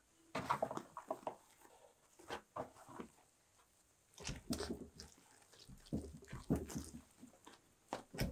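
Hands folding and pressing soft bread dough over an onion filling on a floured wooden board: sticky squishes and soft pats that come in irregular bunches with short pauses between.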